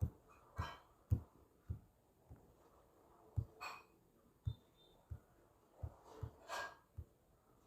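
A dozen or so soft, dull taps at irregular intervals, the moves being input on a virtual Rubik's cube, with three breaths in between.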